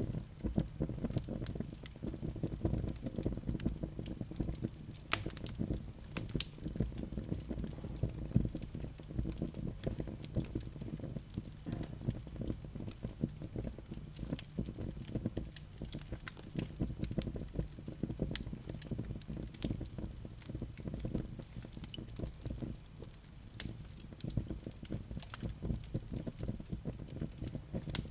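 Wood fire crackling in a fireplace: a dense low rumble of burning with frequent sharp pops and snaps scattered throughout.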